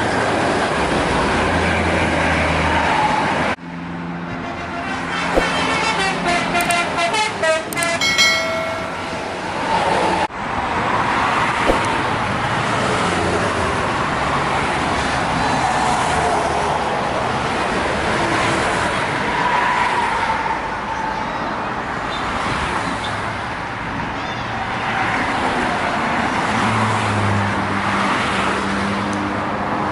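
Steady road traffic noise from passing vehicles. About four seconds in it gives way to a bus telolet horn, a musical multi-tone air horn, playing a quick run of notes for about six seconds. Then the traffic noise returns.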